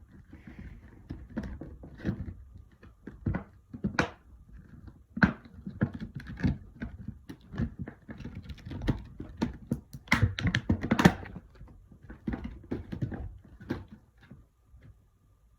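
Packaging being cut and worked apart by hand to free a boxed radio: irregular clicks, snips, crinkles and knocks, loudest at about 4, 5, and 10 to 11 seconds in, then thinning out near the end.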